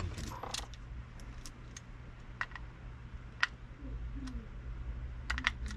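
Light, irregular clicks and taps of small metal reel parts and hand tools as a spinning reel is worked on by hand, over a steady low hum.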